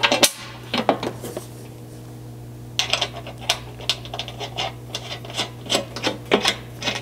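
Serrated flange nuts being spun by hand onto half-inch button-head bolts through a steel skid-plate mounting bracket: small metallic clicks and rattles of nut on thread and bracket on plate, a few in the first second and a half, then a quick run of them from about three seconds in, over a steady low hum.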